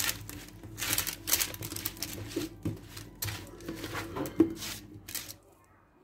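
Irregular rustling and crinkling strokes of something being handled, over a steady low hum; it all stops about five and a half seconds in.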